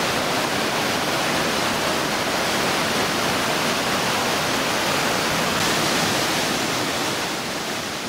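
Glacial meltwater river rushing through white-water rapids over rocks: a steady, full hiss of churning water that starts to fade out near the end.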